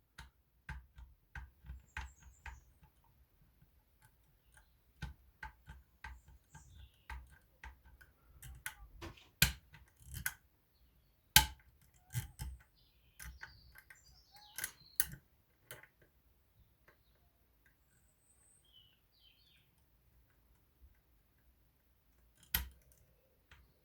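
Lever-lock picks clicking and tapping inside a Union 3G110 five-lever lock as the levers are lifted and let drop, in irregular small metal clicks. The clicks come thickly for the first two-thirds, then thin out, with one sharper click near the end.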